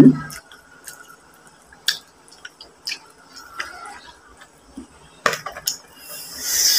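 Scattered clicks and cracks of a cooked mud crab's shell being handled and pulled apart by hand, with one louder crack about five seconds in. A brief low voice sound at the very start and a rising hiss near the end.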